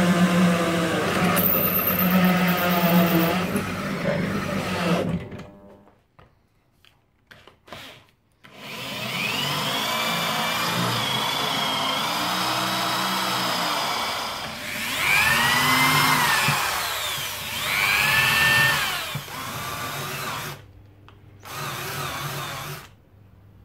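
Benchtop drill press running at a steady pitch, then winding down about five seconds in. After a few clicks, a corded hand drill bores into an MDF wheel, its pitch rising and falling twice. Near the end, a cordless drill briefly drives a screw.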